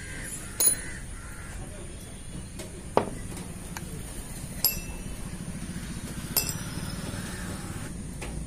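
Small steel chainsaw parts clinking as the clutch-drum washer and needle bearing are taken off the crankshaft by hand: four sharp metallic clinks a second or two apart, over a steady low hum.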